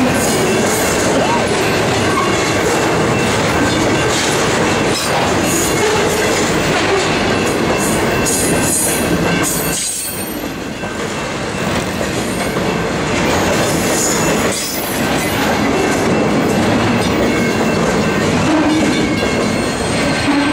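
Freight train of intermodal spine cars loaded with 53-foot trailers rolling past: a steady, loud rumble of steel wheels on the rails, with a few brief high-pitched wheel squeals about halfway through.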